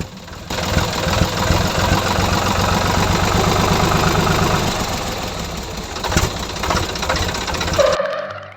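Small engine of a DIY mini tractor running with a fast, even knock. It starts abruptly about half a second in and cuts off shortly before the end, giving way to strummed guitar music.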